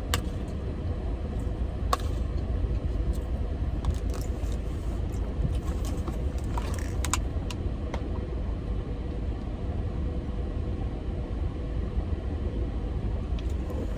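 Steady low rumble inside a car's cabin, with a few sharp clicks and light handling noises of eating.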